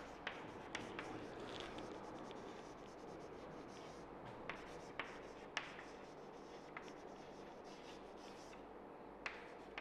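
Chalk writing on a chalkboard: faint scratching strokes with scattered sharp taps as the chalk strikes the board.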